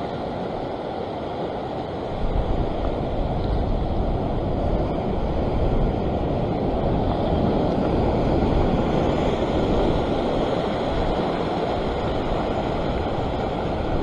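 Waves washing over a rock ledge: a steady rushing wash with wind rumble on the microphone, growing louder about two seconds in.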